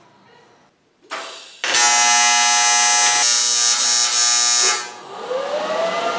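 Welding arc on the aluminium kayak hull, a loud steady electric buzz lasting about three seconds after a short hiss as it strikes. The buzz stops abruptly, and a whine then rises and holds steady.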